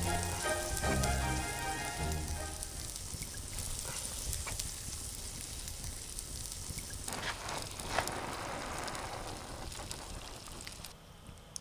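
Music ending in the first couple of seconds, then a steady sizzling and crackling from a cheese-topped vegetable dish in a metal pan sitting on hot ashes in a pit oven, with a few sharp clicks, fading near the end.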